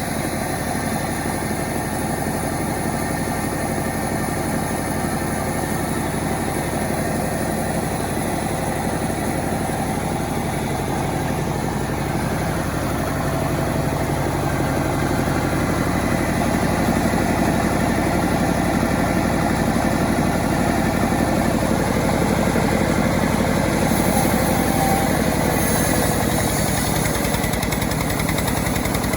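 Engine of a self-assembled chainsaw running steadily, growing somewhat louder about halfway through.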